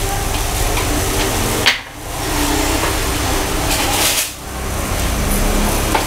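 Broth boiling hard in a large steel wok over an open flame: a steady bubbling hiss with a low burner rumble. A short metallic knock comes just before two seconds, and the sound briefly dips twice.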